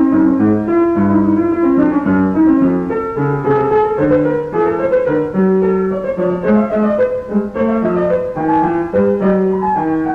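Live chamber music for violin, viola and piano, recorded from the audience, with the piano to the fore playing shifting chords and note runs in a modern classical idiom.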